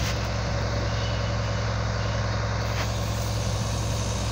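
Heavy diesel machinery engine running steadily at constant speed, a deep even drone. It comes from the equipment recovering a tracked excavator bogged in mud, a mobile crane lifting it from behind.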